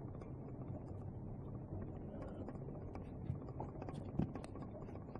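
Faint clicks and handling noises of small plastic and metal drill parts being fitted into the switch housing, with one clearer click about four seconds in, over a low steady background hum.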